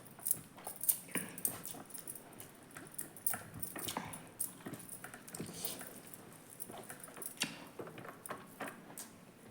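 A person eating and chewing food, with irregular wet mouth clicks and smacks several times a second.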